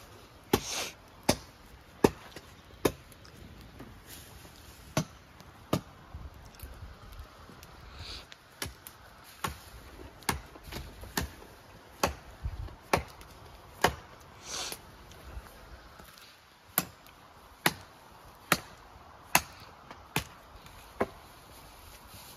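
Wood being chopped with a blade: sharp, regular chopping strokes about one every 0.8 s, in runs of several strokes with short pauses between.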